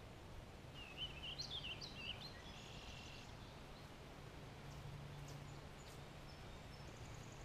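Faint outdoor quiet with a songbird singing one quick warbling phrase of rising and falling notes about a second in, then a few faint chirps. A faint low hum comes and goes beneath it.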